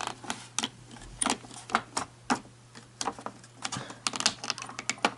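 Irregular light clicks and clatter of small plastic and metal parts being handled inside an HP ProLiant DL360 G7 server while its RAID controller's cache battery is dealt with, several sharp clicks a second, some louder than others.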